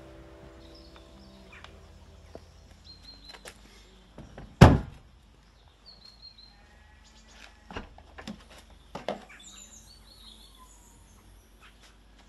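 A Volkswagen Polo's car door shuts with one loud thunk about four and a half seconds in. A few lighter clicks and knocks follow later, as the tailgate is unlatched and opened. Birds chirp faintly throughout.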